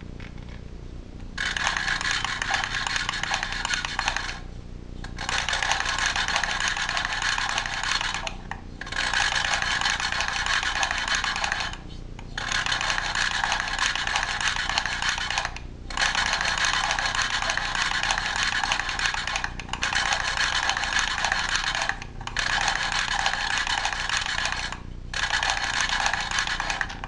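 Valve lapping on a Briggs & Stratton 5 HP engine: a hand-cranked mechanical lapping tool spins the valve against its seat with grinding compound, making a gritty grinding. It comes in about eight spells of two to four seconds, each broken by a short pause. This is the grinding that seats the valve for a tight seal.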